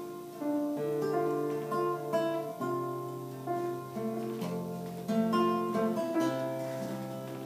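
Instrumental music: acoustic guitar playing slow, sustained chords that change every second or two, with no singing.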